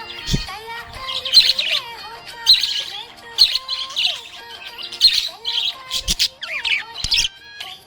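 Budgerigars chirping and warbling in quick bursts of high, rapidly gliding notes, about one cluster a second.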